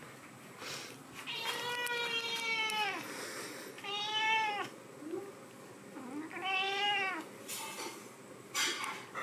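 Domestic cat meowing three times: a long meow that drops in pitch at its end, then two shorter meows.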